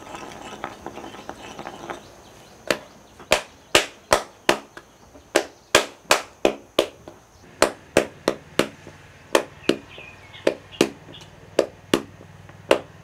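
Wooden paddle beating a partly dried clay pot against a stone held inside it: a steady run of sharp knocks, about two to three a second. This is the paddle-and-anvil beating that shapes and closes the pot's base.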